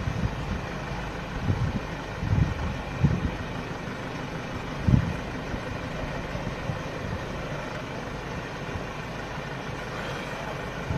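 Vehicle engines idling steadily, with a few short low thumps on the microphone in the first half.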